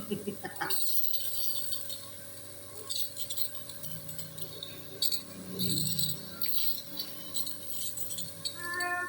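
Phlegm being drawn out through a suction tube, with irregular wet crackling and rattling over the steady hum of the suction machine's motor.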